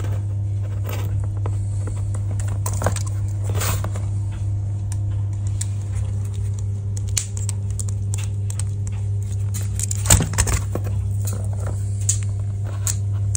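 A steady low hum, with scattered light clicks and clinks of hand tools and metal brake-line fittings being handled and worked, including a small cluster about ten seconds in.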